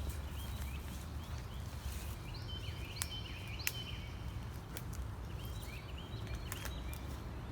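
Small birds chirping repeatedly in short high notes over a steady low rumble, with footsteps and a few sharp snaps or clicks on a wet trail.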